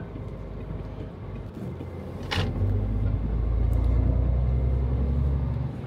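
Mercedes Actros truck's diesel engine heard from inside the cab, running low and steady. About two seconds in there is a short hiss, then the engine gets louder as it pulls away, and it drops off suddenly near the end.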